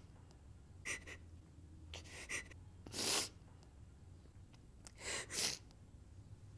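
Several sharp, gasping breaths from a person in distress, spaced a second or two apart, over a faint low steady hum.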